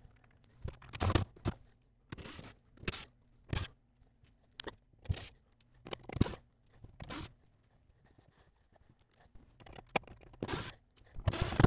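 Irregular scrapes and knocks, about a dozen short ones with a lull about two-thirds of the way through, as metal cabinet hardware is worked loose and pulled out from inside a wooden kitchen cabinet.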